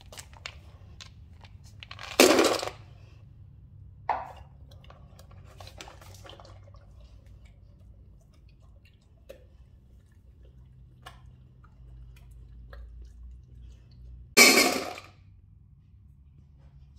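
A dog eating dry kibble from a stainless steel bowl, with scattered small clicks and clinks. There are two loud, short clattering bursts, one about two seconds in and one near the end. The second comes as dry kibble is poured into a metal bowl.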